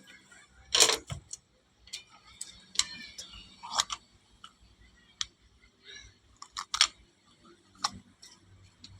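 Irregular sharp clicks and light knocks, about a dozen spread unevenly, the loudest about a second in.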